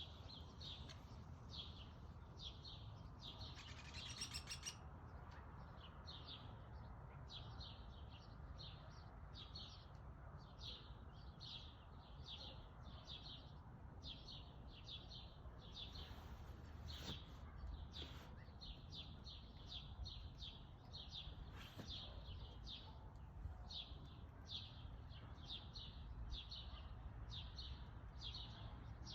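Male downy woodpecker giving short, high pik calls over and over, about two a second, against a faint low background rumble. A brief rapid burst of ticks comes about four seconds in.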